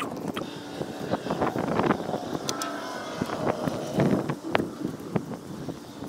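Fabric rustling and irregular light clicks as a mesh fly sheet is pulled over a horse's back and settled into place, with wind buffeting the microphone.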